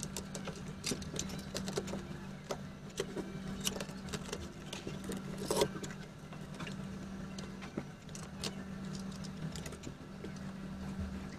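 Small plastic toy-playset pieces clicking and tapping as they are handled and fitted together, with one louder knock about halfway through, over a steady low hum.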